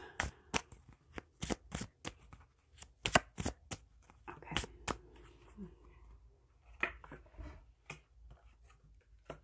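A deck of cards shuffled by hand: a string of quick, irregular card flicks and slaps, coming thick at first and thinning out in the second half.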